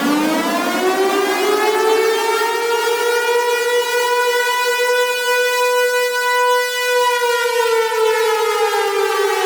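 Civil defense siren sounding one long wail: its pitch climbs for the first couple of seconds, holds steady for several seconds, then slowly falls over the last two seconds.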